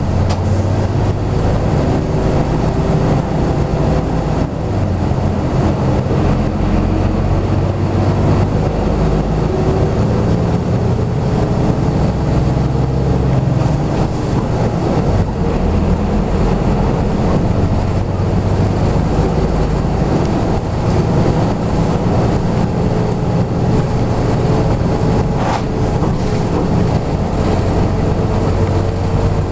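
Inside a 1999 Hino Blue Ribbon city bus under way: the diesel engine running with road noise. The engine note rises slowly, drops back about halfway through, then climbs again.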